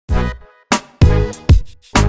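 Music: short, punchy stabs with hard drum hits and bass, each dying away quickly, with brief gaps between them.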